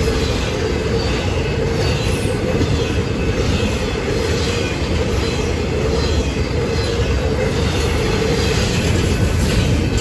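Intermodal freight train rolling past close by, its cars of highway trailers on flatcars and double-stack containers giving a steady, loud rumble of wheels on the rails.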